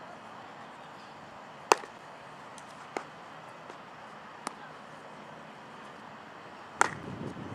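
Four sharp, isolated knocks of a baseball at infield practice, as it is hit and fielded. The first and last knocks are the loudest, and a short jumble of noise follows the last one.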